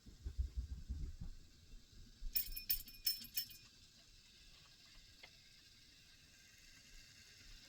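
Wooden toy railway play: low knocks and rumbling for about a second, then a bright metallic jingle of several quick strikes lasting about a second, after which only a faint hiss remains.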